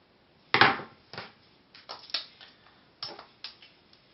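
A hard plastic battery box and cylindrical batteries with metal spring terminals being handled and fitted together: a series of sharp clicks and clacks, the loudest about half a second in.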